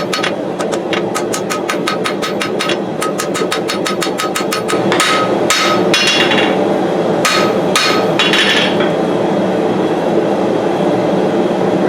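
Hand hammer striking hot steel on an anvil while forging a puukko knife blade. The blows come as quick, light runs of about five a second, each with a short metallic ring, then a few slower, separate strikes. Underneath runs the steady roar of the gas forge burner.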